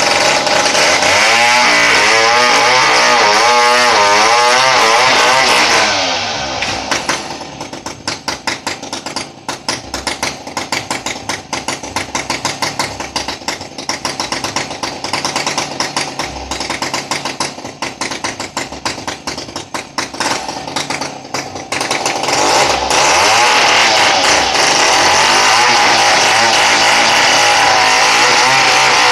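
Two-stroke chainsaw running at high revs with a wavering pitch, easing off after about six seconds to a quieter, rapidly pulsing idle, then revving back up to high revs for the last seven seconds.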